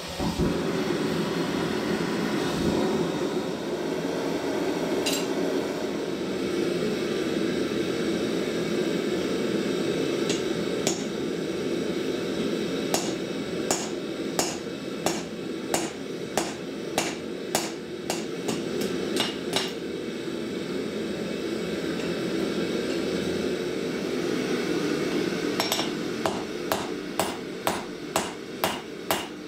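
Gas forge lit with a hand torch and then burning with a steady rushing hiss. From about halfway on, a hand hammer strikes the red-hot file steel on the anvil in runs of sharp blows, quickening to about two a second near the end.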